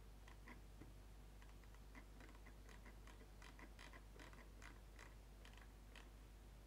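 Near silence: faint room tone with many soft, irregular clicks.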